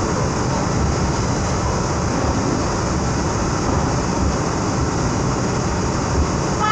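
Salvador Metro Line 2 train running along the track, heard from inside the passenger car as a steady noise of wheels on rails and running gear.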